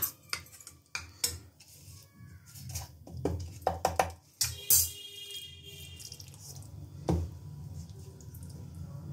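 A metal spoon clinking and scraping in a small ceramic bowl while stirring curd into a batter, with scattered separate taps and knocks of utensils against dishes.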